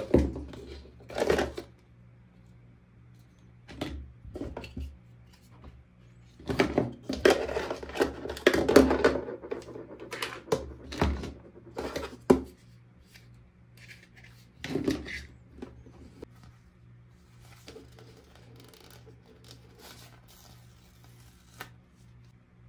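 Hands unpacking a toy pet set: plastic pieces and packaging clicking, clattering and rustling in irregular bursts, busiest in the middle and sparser near the end. A faint steady low hum runs underneath.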